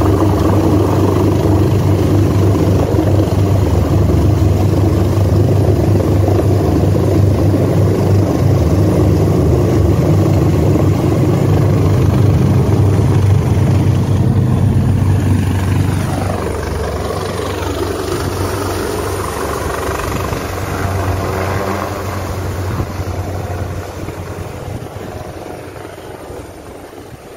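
Helicopter rotor and engines running loud while it hovers close overhead. About two-thirds of the way through it grows fainter, fading steadily as it moves away.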